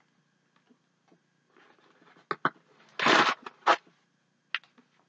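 Clear plastic packaging crinkling and crackling as an item is unwrapped by hand. There are a few sharp crackles and one louder, longer burst of crinkling about three seconds in.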